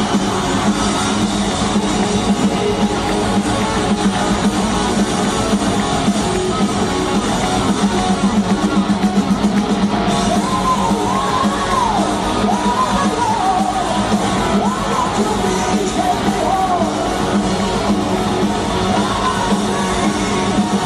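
Hard rock band playing live in an arena: a lead electric guitar whose notes bend up and down from about halfway through, over fast drums and bass, with singing and yells from the crowd.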